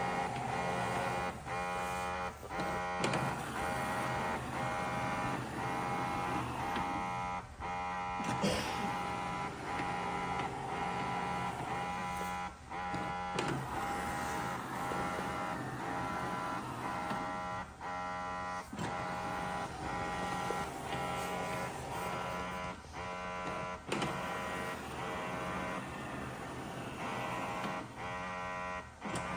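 Shark PowerDetect robot vacuum base station washing the mop pad: a steady motorised whir that drops out briefly about every five seconds.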